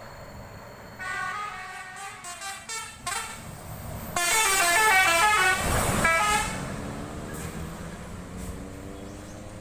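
Intercity bus's telolet multi-tone air horn playing a quick stepping melody, softer about a second in, then loudest from about four to six and a half seconds as the bus passes close with a rush of engine and road noise, fading after.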